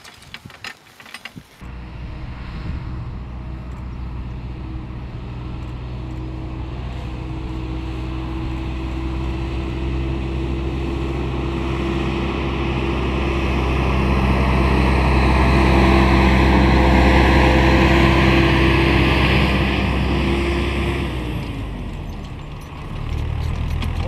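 A few short knocks, then a motor vehicle's engine running steadily, swelling gradually to a peak about two-thirds of the way through and then fading away, as it approaches and passes.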